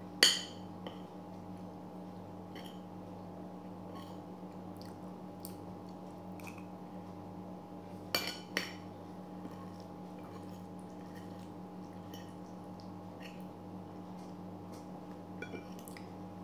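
Spoon and fork clinking and scraping on a ceramic plate during a meal, with a sharp clink just after the start, two more about eight seconds in, and lighter ticks between, over a steady low hum.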